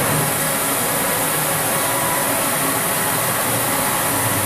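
Steady hum and hiss of a powered-up CNC vertical machining center running, even in level with faint steady tones.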